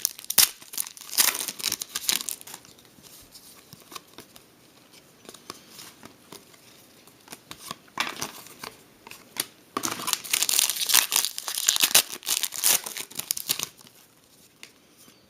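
Trading-card pack wrappers crinkling and tearing as packs and cards are handled, in bursts of rustling: loudest in the first two seconds and again from about eight to fourteen seconds in.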